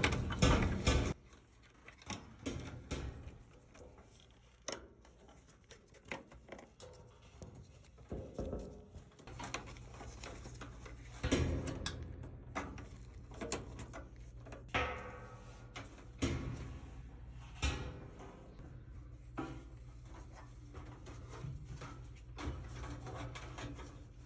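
Scattered clicks, taps and rustles of hands fitting wire connectors and plastic parts inside a dryer, over a faint steady low hum.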